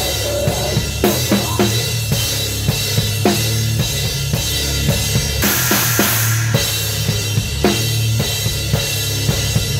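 Drum kit played hard with a live band, heard close-up from the kit: kick and snare hits over steady low bass and guitar, with a wash of cymbals about halfway through.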